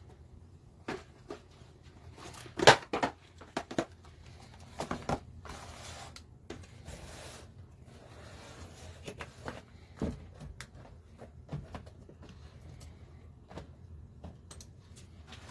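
Scattered clicks and knocks of objects being handled, the loudest about three seconds in, with two short spells of rustling a little past the middle.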